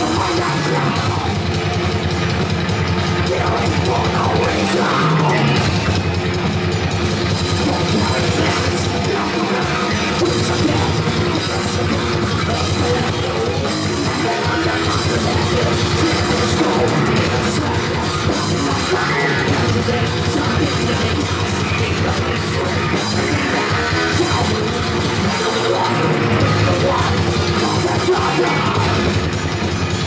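A live heavy rock band playing loud, with a pounding drum kit, electric guitars and vocals.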